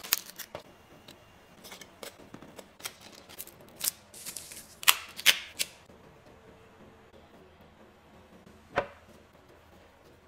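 Gloved hands shelling a lobster and handling the meat: a run of sharp cracks, clicks and crackles, thickest about halfway through, then one sharp crack near the end.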